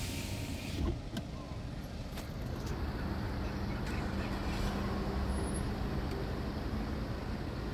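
Low, steady rumble of street traffic and idling cars, heard through the car's open window, with a steady low hum from about three seconds in.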